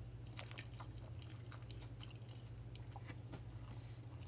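Close-up sounds of a person chewing a cheesesteak sandwich and biting into it again, many small wet mouth clicks, over a steady low hum.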